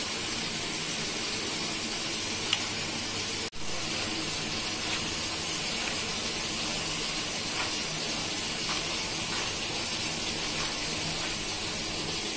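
Steady hiss with a few faint light ticks as a hand rubs flour and oil together in a glass bowl. The sound cuts out for an instant about three and a half seconds in.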